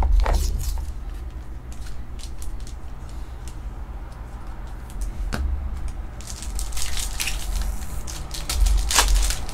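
Plastic and foil crinkling as a trading card is slid into a clear plastic sleeve and a foil pack wrapper is handled, with a denser stretch of crinkling about six to seven seconds in and a sharp crackle near the end.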